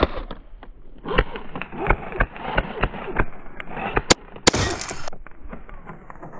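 Irregular clicks and knocks, with one louder sharp crack about four seconds in followed by a brief hiss.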